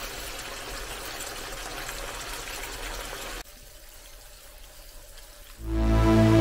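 Steaks with onion and green pepper sizzling in a frying pan, a steady hiss. It drops away abruptly about three and a half seconds in, and music with sustained tones starts near the end.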